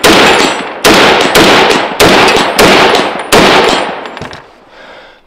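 Semi-automatic .300 Winchester Magnum rifle with a muzzle brake firing a rapid magazine dump: six loud shots, about two a second, the last one about three and a half seconds in, after which the echo dies away.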